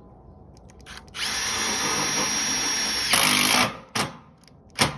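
Cordless drill driving a screw through a gutter overstrap stiffener: about two and a half seconds of steady whine, louder for its last half second, then it stops, followed by two short clicks.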